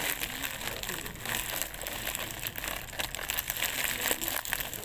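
Packaging being handled while books are unboxed: irregular crinkling and rustling with many small crackles.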